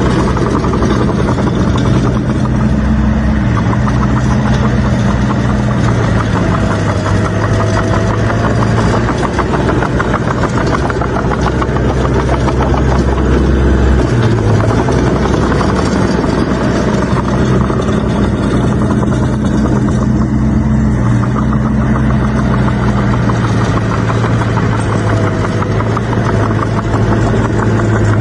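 Diesel engine of heavy earthmoving machinery running steadily, its pitch stepping up and down several times as it works.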